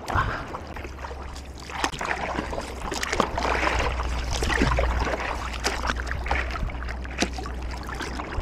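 Sea water lapping and splashing around a surfboard, with scattered small splashes and a low steady rumble underneath.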